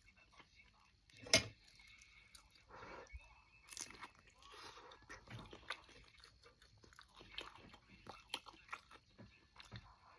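A person chewing and biting food close to the microphone: irregular soft clicks and crunches, with one sharper, louder snap about a second and a half in.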